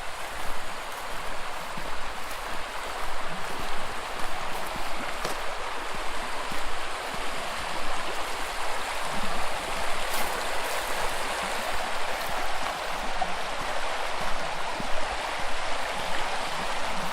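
Footsteps walking outdoors over a steady rushing noise.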